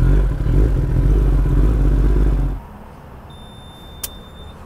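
Kawasaki ZX-10R superbike's inline-four engine running at low revs through an aftermarket Akrapovic exhaust, a loud uneven low rumble that cuts off suddenly a little past halfway. A quieter low hum follows, with a short high beep and a sharp click near the end.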